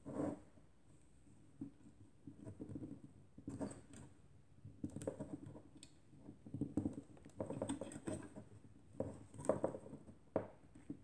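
Small, irregular clicks, taps and scrapes from the metal lens standard and struts of a KW Etui folding camera being worked by hand while trying to fold it closed.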